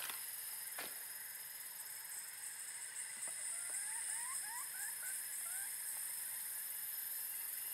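Rural outdoor ambience: a steady high-pitched insect hiss, with an animal calling a quick run of short rising chirps in the middle, and a single sharp click just under a second in.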